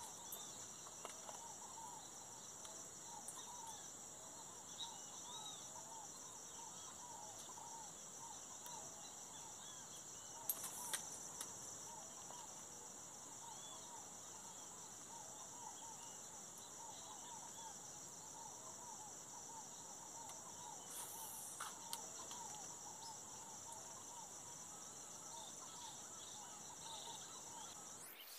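Insects trilling steadily in a continuous high-pitched drone, with faint short chirping calls beneath it. A few brief clicks stand out, a couple near the middle and again about three-quarters through.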